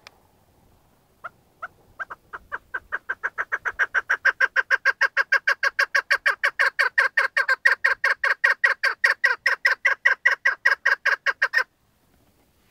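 A caged chukar partridge giving its rallying call: a long run of short, clucking 'chuk' notes. The notes start slow and sparse, quicken and grow louder to about five a second, then stop abruptly. It is used as a decoy call in partridge hunting.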